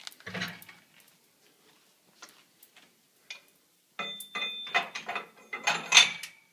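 Metal parts of a membrane module's hydraulic clamping tool being handled: a few scattered clicks, then about four seconds in a dense run of clicking and clinking with a brief ringing tone.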